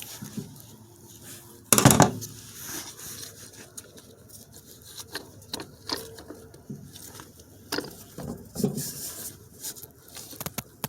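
Workshop handling noises: scattered clinks, knocks and scrapes of metal parts and tools, with one loud clank about two seconds in.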